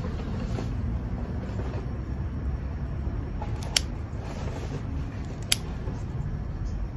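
Two sharp snips of scissors cutting thyme stems, about a second and a half apart, over a steady low background rumble.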